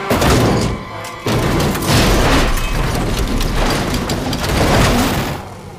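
Background music mixed with loud cartoon sound effects that begin suddenly, including a boom-like impact.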